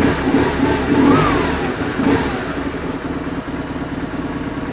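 BMW R850R's flat-twin boxer engine idling while warming up after a cold start, blipped two or three times in the first two seconds with a brief rise and fall in pitch, then settling back to a steady, even idle.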